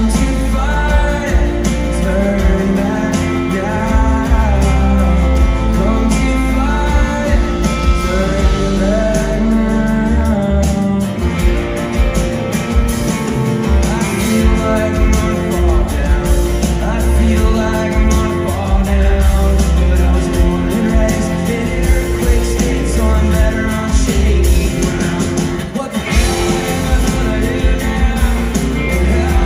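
Live band playing a song: a male lead vocal over acoustic guitar, electric guitar, bass and drums. The bass thins out for a few seconds about a third of the way through.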